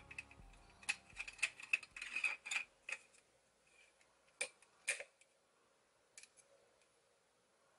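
Sharp plastic clicks and ticks as the green plastic top of a hand-held kitchen gadget is twisted on its glass jar. There is a quick run of clicks over the first three seconds, then two louder clicks about half a second apart, then quiet.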